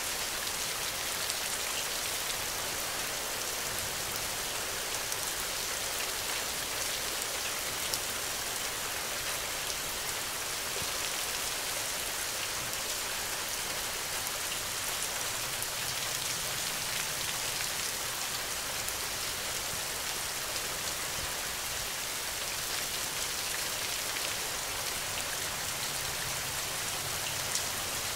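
Steady rain falling: an even, unbroken hiss with a few sharper drop hits here and there.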